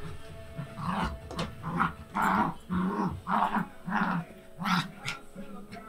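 Two Maltipoo puppies play-fighting, growling in a rapid run of short bursts, about two to three a second. It sounds aggressive, but it is play.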